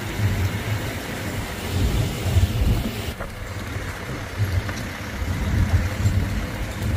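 Safari canter, an open truck-based diesel bus, driving along a jungle track: its engine runs steadily under an uneven low rumble of the ride.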